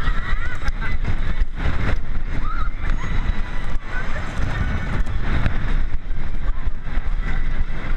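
Steel roller coaster train running at speed on its track, with a heavy wind rush on the onboard microphone and a low rumble from the wheels. Riders' short screams and shouts come through now and then.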